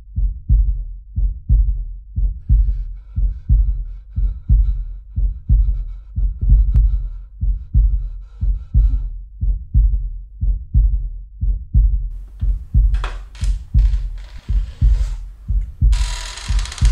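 Heartbeat sound effect: a steady run of deep low thumps. A faint high ringing tone hangs over it in the middle, and bursts of hiss build up near the end.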